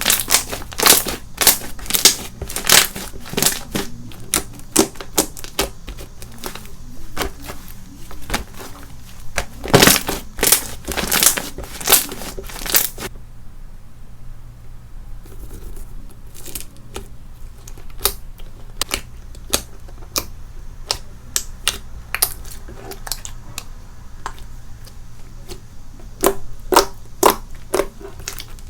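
Slime being squeezed and pressed by hand, giving rapid crisp clicks and crackling pops. The clicks come thickly in the first half, thin out in the middle, and pick up again near the end.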